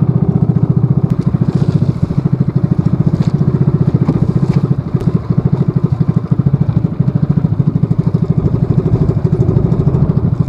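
Small engine of a motorized outrigger fishing boat running steadily underway, with a fast, even chugging beat.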